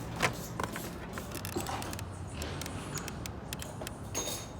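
Scattered light clicks and taps, the sharpest about a quarter second in, over a steady low hum, with a short hiss near the end.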